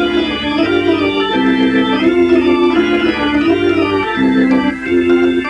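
Organ music: a tune of held chords that change about every half second to a second.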